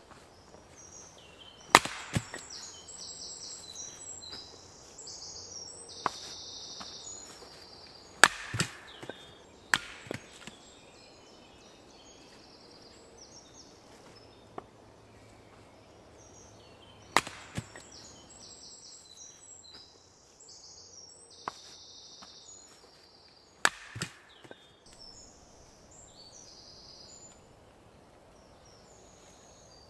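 Hatchet chopping firewood on a wooden chopping block: sharp wooden strikes, mostly in pairs, every few seconds, about a dozen in all.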